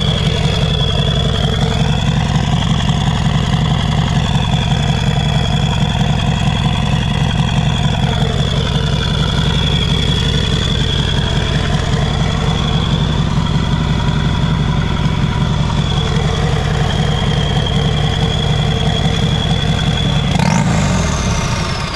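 A motorcycle engine running steadily at idle, loud and close, with a thin steady high whine over it.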